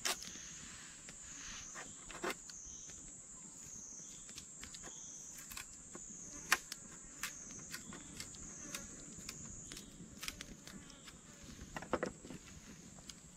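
A steady high-pitched insect drone that swells and dips slightly every second or so, with scattered sharp clicks and knocks throughout; the loudest click comes about six and a half seconds in, and a cluster of knocks near the end.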